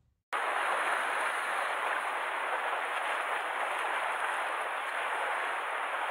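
Steady rushing and washing of sea water against shore rocks, starting suddenly about a third of a second in.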